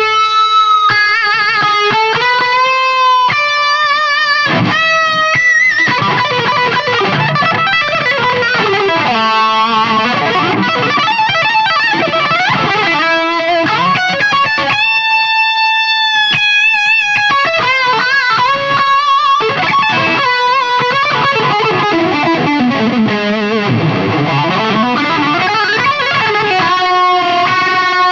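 Distorted electric guitar played solo on a Fernandes Revolver signature guitar: fast runs broken by long held notes with wide vibrato. About three quarters of the way through, the pitch swoops down and back up.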